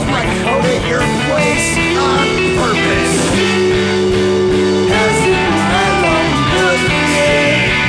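Psychedelic rock song with electric guitar over a steady beat.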